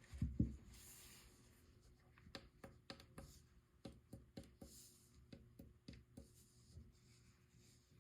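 Faint handling noises of an unboxing: a soft thump about half a second in, then a run of light, irregular clicks and taps with faint rustling as packaging and its contents are handled.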